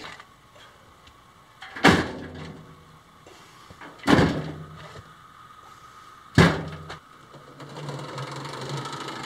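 Three shovelfuls of dirt dumped into a metal wheelbarrow, each a sharp thud that rings briefly. Near the end a small buggy's motor starts running steadily.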